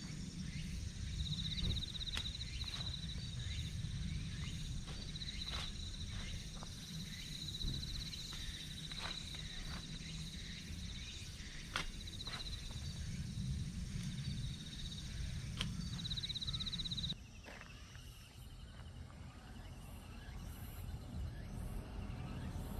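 Shovel digging into stony soil, its blade knocking and scraping a dozen or so times, over the steady pulsing chirp of insects. After about seventeen seconds the digging stops and the background turns quieter.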